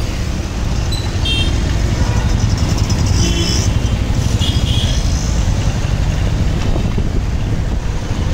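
Steady low rumble of wind and engine from a motorcycle riding through city traffic, with a few short high-pitched tones from the traffic about one, three and four and a half seconds in.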